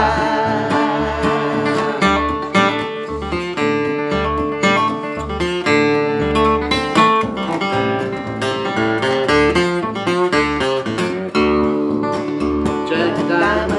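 Flatpicked acoustic guitar playing an instrumental break of an old-time bluegrass song over plucked upright double bass notes. Singing is heard briefly at the start and again near the end.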